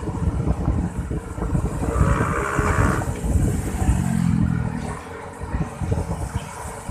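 Excavator engine running and working, a continuous low rumble, with a brief higher whine about two seconds in and a short deeper drone about four seconds in.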